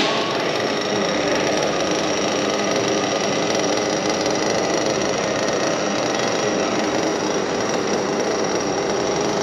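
Electric off-road RC cars running on a dirt track: several motors whining together in a steady mechanical buzz.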